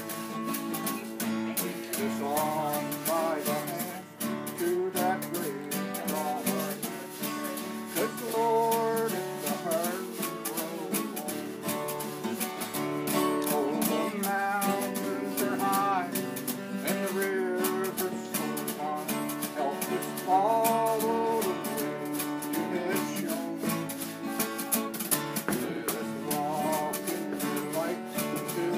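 Acoustic guitar playing a song's tune and chords, with the notes changing steadily throughout.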